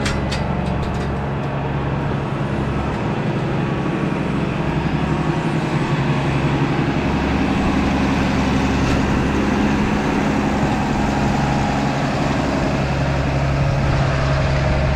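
Engine of a farm vehicle running steadily at low revs as it backs in to feed the cows, a constant low hum with no let-up.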